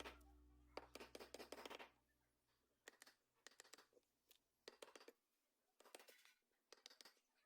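Faint hand-tool work on wood: short scratching strokes and clicks in small clusters, a second or so apart. The tail of background music fades out over the first two seconds.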